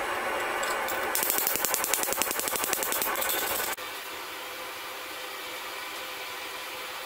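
Fast hammering on hot steel forced into an anvil-mounted collar jig: a quick run of metal-on-metal blows lasting about two and a half seconds, after which a steady rushing noise from the forge fire carries on.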